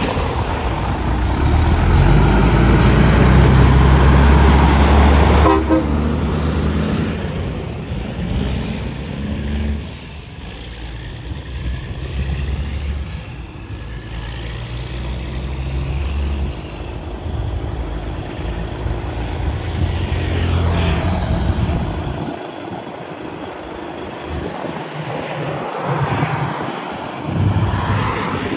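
Vehicles driving out past on the road: a heavy engine pulling a trailer is loudest for the first six seconds, with horn blasts, then cars pass more quietly.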